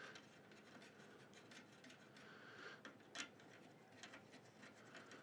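Near silence with faint, scattered small clicks and light handling of computer parts, one click a little louder about three seconds in.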